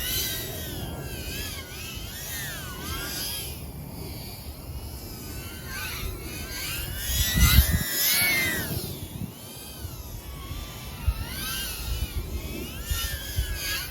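Tiny whoop's 1S brushless motors whining in flight, their pitch rising and falling constantly as the throttle changes, over a low rumble. A louder low rush comes about halfway through.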